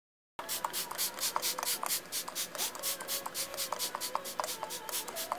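Rhythmic scratchy rubbing strokes, about five a second, with small squeaks between them, starting suddenly after a split second of dead silence.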